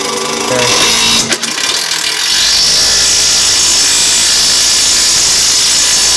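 Milwaukee Fuel cordless power tool driving a tank-mounting bolt. It runs in a short burst in the first second and a half, then steadily and loudly from about two seconds in.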